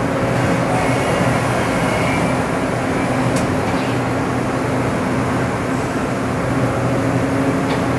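Steady machinery hum and whir with a faint steady low tone underneath, and a single sharp click about three and a half seconds in.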